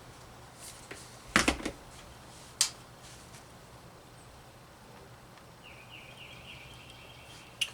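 A few sharp clicks and taps of tools being handled on a workbench during desoldering: two close together about a second and a half in, and one more a second later. A faint, short warbling chirp follows near the end.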